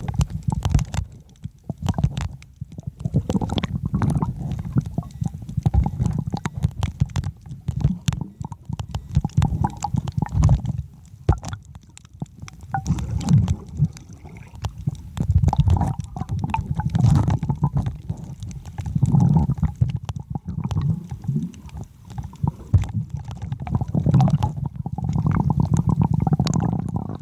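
Underwater sound from a submerged camera: muffled low rumbling and gurgling of water moving around it as a snorkeler swims, swelling and fading unevenly, with many small sharp clicks scattered through it.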